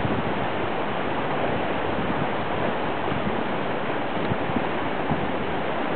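Floodwater rushing, a steady, even roar.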